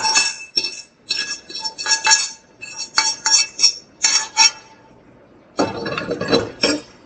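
A metal utensil clinking repeatedly against a pan and a ringing plate while cooked spinach is served out, then about a second of scraping near the end.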